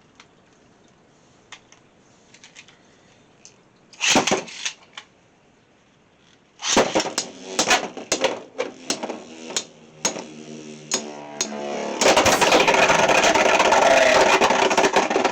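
Beyblade X battle. About four seconds in, a launcher rip sends the spinning tops into a plastic stadium. From about seven seconds the tops spin and strike each other, giving rapid clicks and knocks, and from about twelve seconds they make a loud, continuous grinding clatter.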